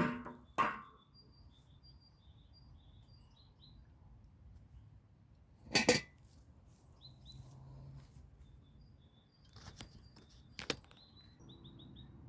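Small birds chirping in short runs of quick notes, with a few sharp knocks or clinks, the loudest a double hit about six seconds in and two more near the end.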